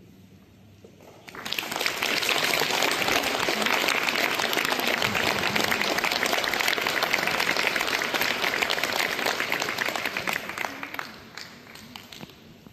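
Audience applause breaking out about a second and a half in after a brief hush, holding steady for about ten seconds, then dying away near the end.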